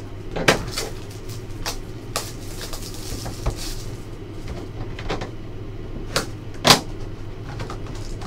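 Cardboard trading-card hobby box (Upper Deck SPx hockey) being handled and opened by hand: scattered taps, scrapes and rustles, the sharpest knock a little before the end, over a steady low hum.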